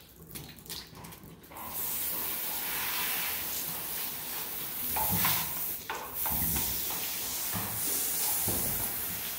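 Water spraying from a hose's spray nozzle onto a horse: a steady hiss that starts about a second and a half in, with water splashing down onto the wash-stall floor.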